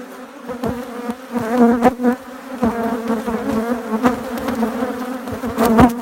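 Honeybees buzzing in a steady hum, with single bees flying close past the microphone again and again, their pitch swooping up and down. The colony is worked up, just after being moved from a nuc box into a deep hive body.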